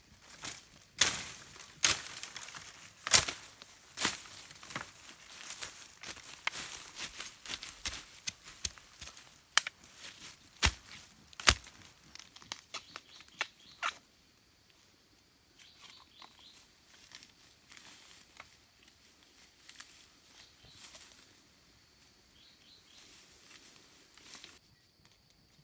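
Crackling and tearing of dry material being handled, with many sharp cracks for about fourteen seconds, then only faint rustles and a steady thin high tone.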